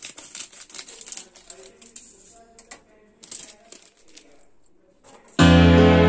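Scissors snipping into a plastic snack pouch, with the pouch crinkling: a run of sharp, irregular clicks and rustles. About five seconds in, loud instrumental music starts.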